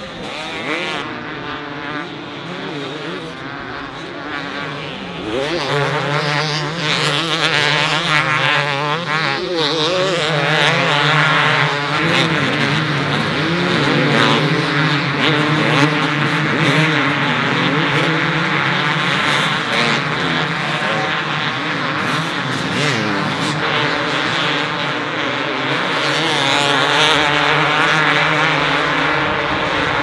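A pack of two-stroke motocross bikes racing, many engines revving high and gliding up and down in pitch as they run through the gears. The sound swells about five seconds in and stays loud.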